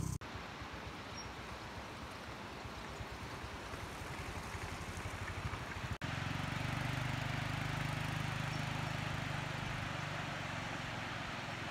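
A motorbike engine's low pulsing outdoors, then after a sudden cut about halfway through, a steady rushing hiss of flowing water over a low hum.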